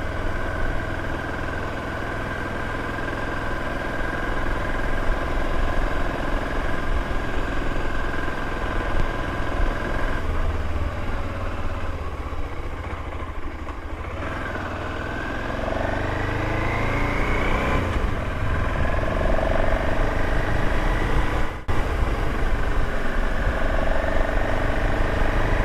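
Motorcycle engine running while riding, with a low wind rumble on the microphone. The engine note holds steady, then rises in pitch for a few seconds about halfway through as the bike picks up speed, with a brief break in the sound a little later.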